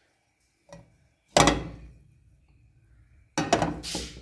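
Metal spoon knocking and scraping against a steel frying pan while pushing melting desi ghee around: a few sharp clinks, the loudest about a second and a half in, and a quick cluster with a scrape near the end.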